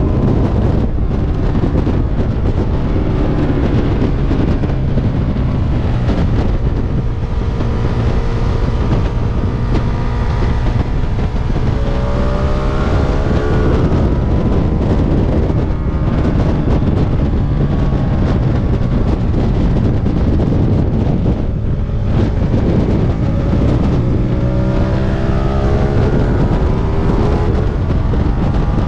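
Stock Ducati sportbike at track speed, its engine note climbing twice as it accelerates hard, about halfway through and again near the end, under a heavy rush of wind on the onboard microphone.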